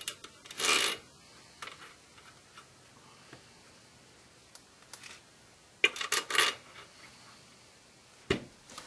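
Scattered light metallic clicks and scrapes of a BMW E46 flywheel being worked onto the crankshaft at the back of the engine, with a short scrape about a second in and a quick run of clinks about six seconds in.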